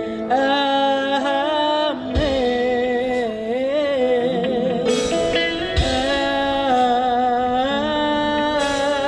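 Live worship band playing a slow song, with voices holding long, wavering notes over the accompaniment and a few deep drum hits.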